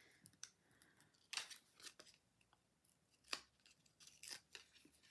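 Faint crinkles and sharp ticks of small paper pieces being handled: adhesive foam pop dots peeled and pressed onto a cardstock cut-out. The loudest tick comes a little past three seconds in.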